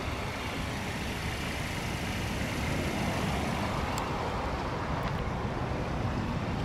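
Steady outdoor noise: a low, uneven rumble with a hiss above it, and two faint clicks about four and five seconds in.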